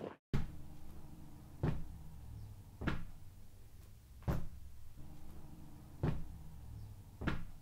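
Slow footsteps on a railway track: six dull thuds about one and a half seconds apart over a faint low background.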